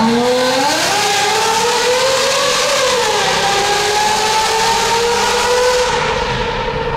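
Mercedes-Benz W140 S600's 6.0-litre M120 V12, through a Brilliant valved exhaust with the valves open, accelerating hard in a tunnel. The note climbs for a couple of seconds, dips briefly about three seconds in, climbs again more gently, then eases off near the end.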